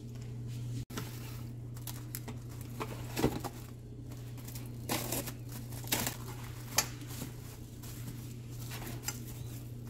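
Plastic cling film crinkling as it is stretched over a bowl of dough and pressed down around the rim, in short scattered rustles over a steady low hum.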